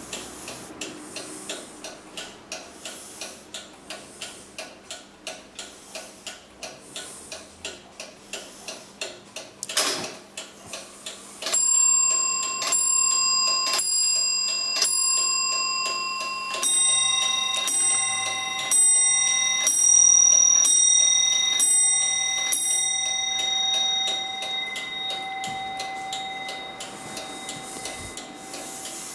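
18th-century Pierre Jaquet-Droz table clock with a short, fast pendulum, ticking quickly at about two to three beats a second. A click comes about ten seconds in, and then the clock strikes on its bells, roughly one blow a second for about ten seconds. Partway through the strike the tone changes to a second, lower bell, and the ringing dies away under the ticking.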